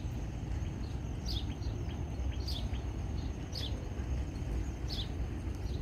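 A bird calling over and over: a short, high chirp that falls in pitch, repeated about once a second, over a steady low rumble.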